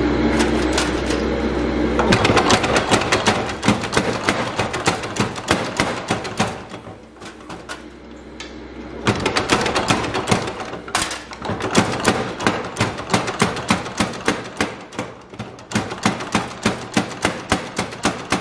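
Massey 1cwt overhanging spring power hammer forging red-hot steel. The machine runs with a steady hum for about two seconds, then the top die strikes in rapid blows. The blows ease off and soften for a few seconds in the middle, then resume at about three a second.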